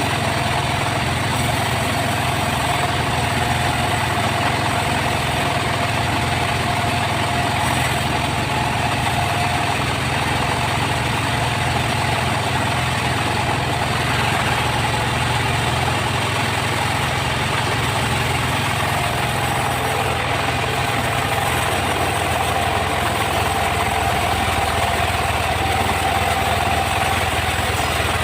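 Sawmill engine and saw running steadily, a constant low hum with a steady whine above it.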